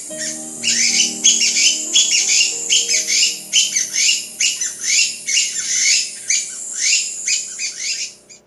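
Recorded birdsong, many quick chirping calls in fast succession, over soft piano music holding low notes. Both stop abruptly near the end.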